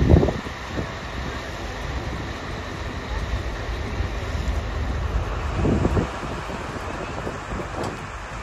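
Wind buffeting the microphone over the steady low rumble of a tour boat under way.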